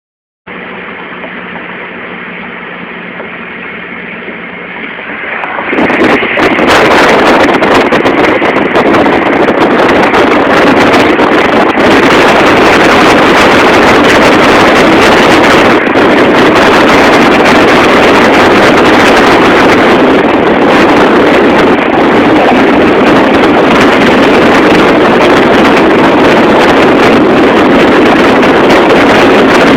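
Moving car at night, heard on a phone microphone: a quieter steady hum, then about six seconds in a sudden loud, even rush of wind and road noise buffeting the microphone that runs on unchanged.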